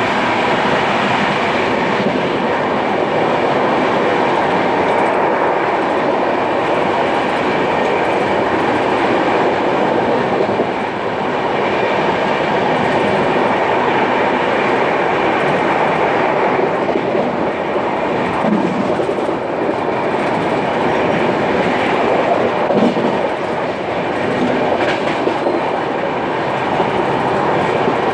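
Dhauli Express passenger train running along the track, heard from an open coach doorway: a steady, loud noise of the coaches' wheels on the rails.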